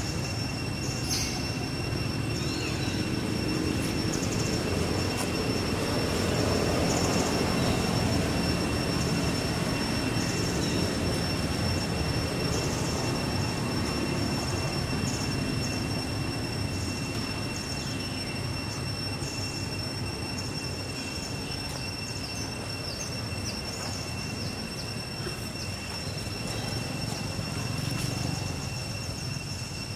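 Steady outdoor background noise: a continuous high-pitched whine holding one pitch, over a dense low rumble that swells a little several seconds in.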